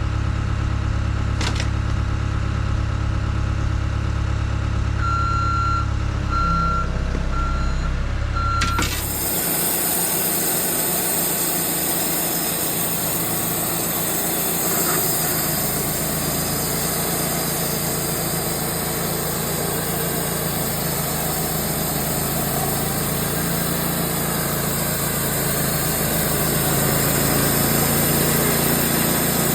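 Wood-Mizer sawmill's engine running steadily, with four short electronic beeps, then about nine seconds in the sound changes suddenly to a louder, hissing machine noise of the mill running and sawing the log.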